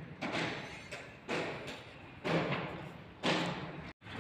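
Heavy knocks on steelwork, about one a second, each ringing out briefly, typical of hammering at a steel construction site. The sound cuts off abruptly near the end.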